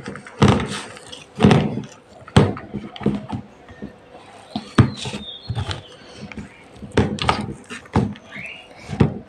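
A hand kneading sticky date paste with chopped almonds in a plastic bowl: irregular knocks and taps as the fingers press and scrape the mixture against the bowl.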